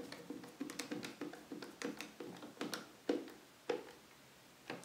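Hand screwdriver working a screw on the back panel of a controller box: a run of small clicks and scrapes, then three sharper taps near the end.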